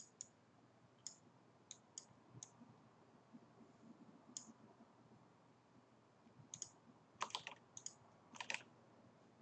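Faint, irregular clicking of a computer mouse and keyboard: a dozen or so short clicks, some in quick clusters of two or three in the second half, over near silence.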